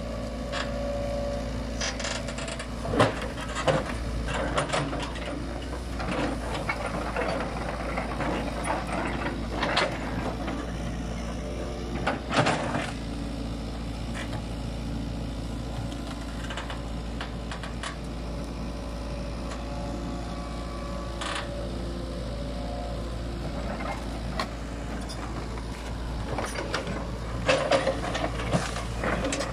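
Hitachi tracked excavator's diesel engine running steadily as its bucket shifts felled logs, with scattered knocks of wood against steel, louder about three seconds in, around twelve seconds in and near the end.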